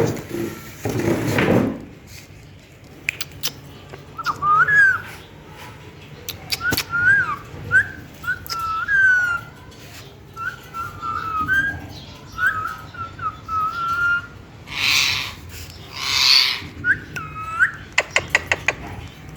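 Green parrot whistling a long string of short notes that slide up and down, with two short harsh screeches about three-quarters of the way through.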